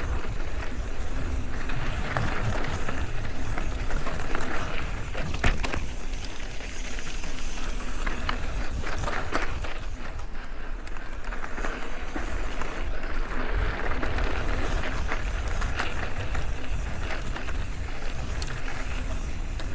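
Mountain bike riding over loose ground: a steady rush of tyre and wind noise with a heavy low rumble on the microphone, broken by scattered clicks and knocks as the bike rattles over rocks.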